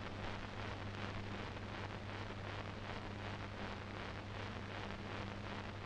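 A faint steady low hum with an even hiss behind it: the background noise of an old film soundtrack, with no dialogue or music.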